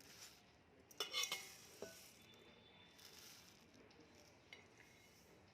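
A few light clinks of a spoon or utensil against a bowl, a cluster about a second in and one more just before two seconds; otherwise near silence.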